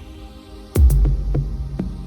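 Electronic background music: a heavy, deep bass hit about three-quarters of a second in, with a few lighter percussive clicks after it.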